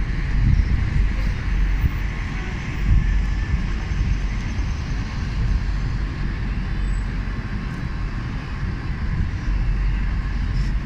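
Steady low rumble of a moving vehicle, without breaks or sudden events.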